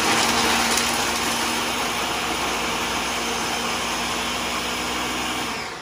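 Electric food processor running steadily, pureeing a dry mix of arugula, parsley, Parmesan and pistachios with a steady motor hum. It is switched off near the end and winds down.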